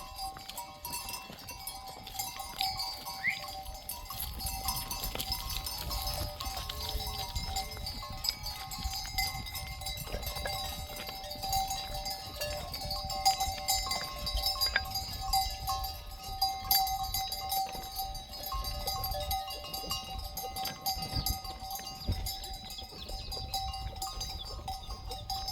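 Livestock bells ringing continuously, with many scattered small clicks and knocks.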